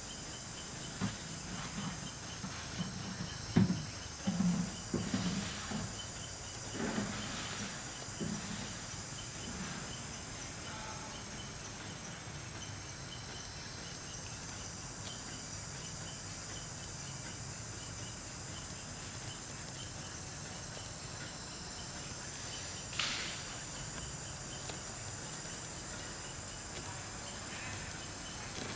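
Steady high-pitched insect chorus, with a few short low sounds in the first several seconds, loudest around four seconds in, and one brief sharp sound near the end.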